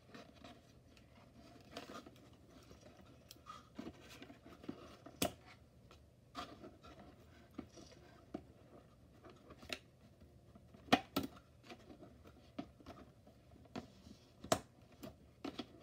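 Small children's scissors snipping at a doll's box packaging: sharp clicks scattered a second or more apart, the loudest about eleven seconds in, amid the rustle of cardboard being handled.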